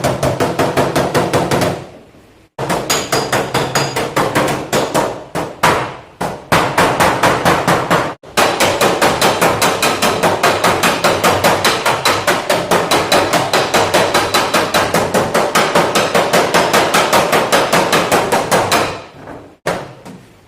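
Hammer beating out sheet metal on a car door in quick, even strikes, about five a second, with brief stops about 2 and 8 seconds in, ending about 19 seconds in: panel-beating a dent.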